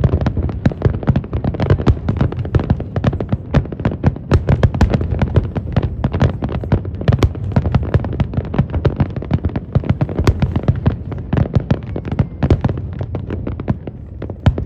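Fireworks going off in a dense, rapid barrage of bangs and crackles, several a second, over a continuous deep rumble.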